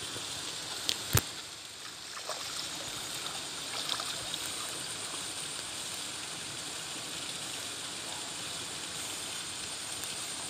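Steady rush of running river water, with two sharp clicks about a second in and a few faint ticks after.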